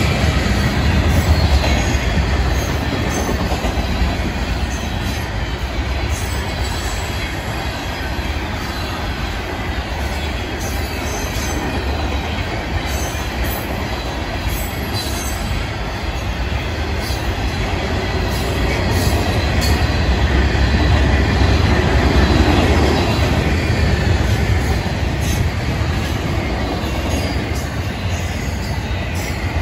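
Freight train cars rolling past: a steady rumble of steel wheels on rail with scattered sharp clicks and squeaks, swelling a little about two-thirds of the way through.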